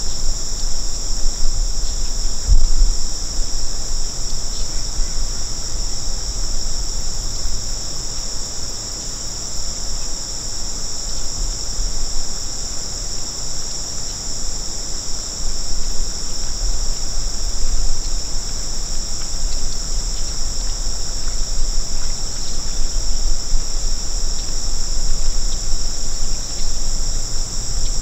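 Steady, high-pitched insect chorus trilling without a break, over a low rumble that rises and falls.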